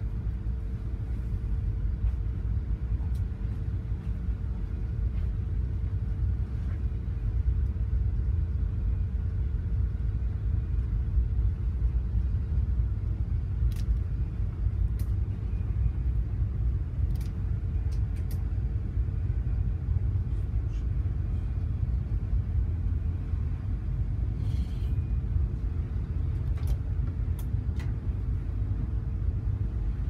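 Steady low rumble of a container ship under way, heard inside the bridge, with a steady hum and a few faint clicks.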